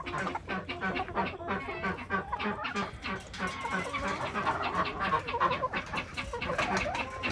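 A flock of young hens clucking, many short clucks overlapping without a break.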